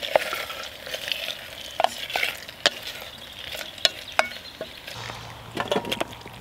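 A wooden spoon stirs pasta and sausage in a metal billy pot over a small camp stove, knocking and scraping against the pot at irregular intervals over a light frying hiss. About five seconds in comes a quick run of clicks as the food is spooned from the pot into a metal pan.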